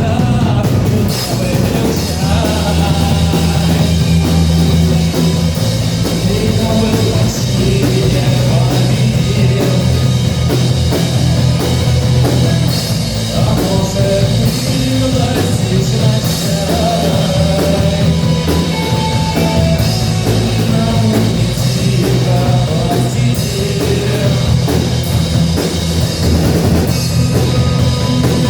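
Rock band playing a song: drum kit, bass and guitar, loud and steady throughout.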